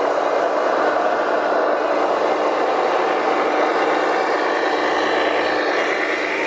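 Radio-controlled scale trucks crawling and driving past, their motors and drivetrains running with a steady mechanical hum.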